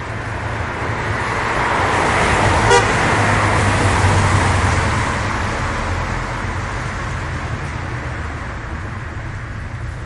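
Car tyres hissing on a wet road as traffic passes from right to left, the spray noise swelling over the first few seconds and then slowly fading, over a steady low engine rumble. A very short sharp blip about three seconds in.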